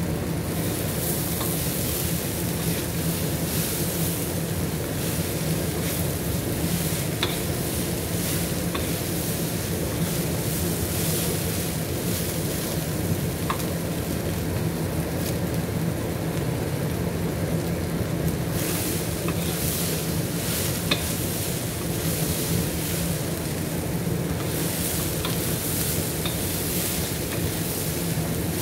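Chickpeas frying in oil in a wok, sizzling steadily while a wooden spatula stirs and scrapes them round, with a few light knocks of the spatula against the pan. A steady low hum runs underneath.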